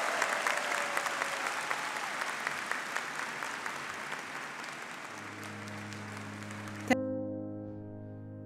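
Audience applauding, slowly dying down. A low held music note comes in about five seconds in, and a sharp musical hit near the end cuts the applause off, leaving sustained music chords.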